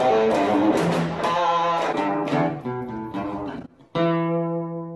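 Instrumental intro music led by guitar, playing a run of notes, breaking off briefly near the end and closing on one held chord that fades away.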